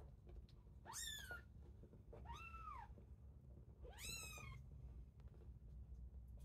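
Very young kittens mewing: three short, high-pitched mews, each rising and then falling in pitch, about a second in, at two and a half seconds and at four seconds.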